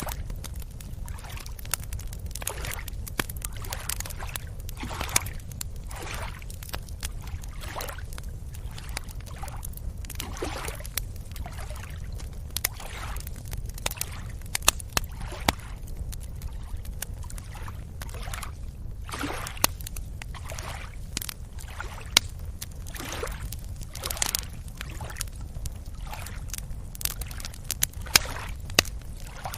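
Beach ambience: small waves lapping and sloshing at the water's edge every second or two over a steady low rumble, with scattered sharp clicks.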